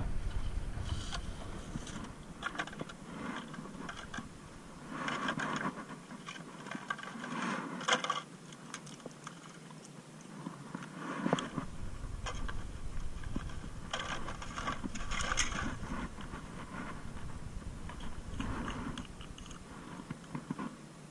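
Plastic containers and lids being handled and rummaged in a plastic bucket: irregular scrapes, clicks and rattles.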